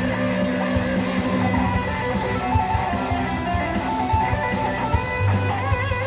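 Rock band playing an instrumental passage: electric guitar over bass notes and a steady drum beat, with no singing.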